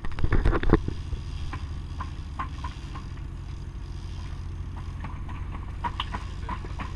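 A fishing boat's engine runs with a steady low hum. A cluster of sharp knocks comes in the first second, followed by scattered light clicks.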